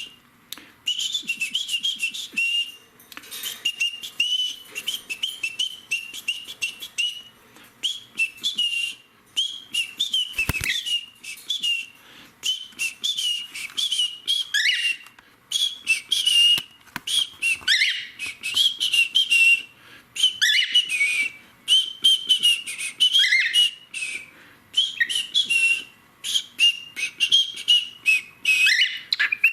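Cockatiel chattering and warbling in short bursts of rapid, high, buzzy notes, with a few whistled slides in pitch, near-continuous with brief pauses.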